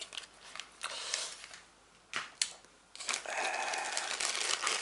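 Small clicks and knocks as a charger and its wound cable are handled and set aside. From about three seconds in comes a steady crinkling rustle of items being rummaged through.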